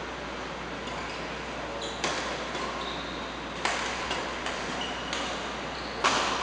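Badminton rally: rackets striking the shuttlecock in sharp cracks about a second apart, the loudest near the end. Between the hits come short high squeaks of shoes on the court floor.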